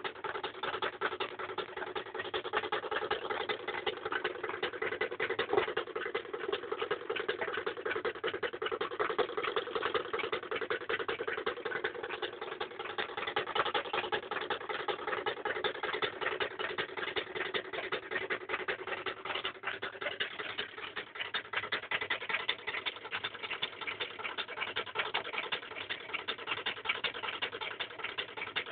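Reed-switch magnet pulse motor with three coils running: a fast, even clicking and buzzing from the spinning magnet rotor and the switching coils, with a steady hum that fades out about two-thirds of the way through.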